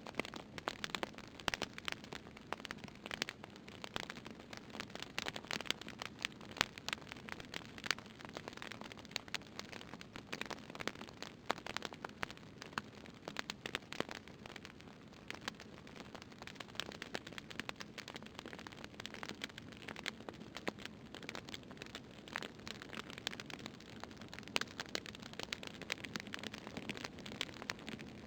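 Fire crackling: a steady low rush of burning with frequent irregular sharp pops and snaps.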